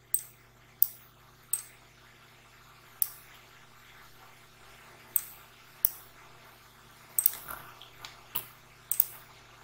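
Computer mouse and keyboard clicks, about a dozen short sharp clicks at an irregular pace, over a faint steady low hum.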